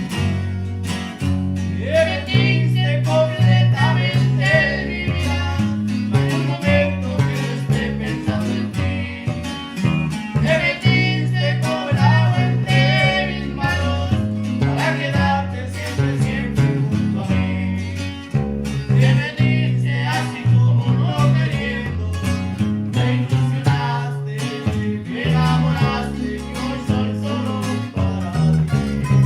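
Live norteño band music: plucked and strummed guitars over a stepping bass line, playing without a break.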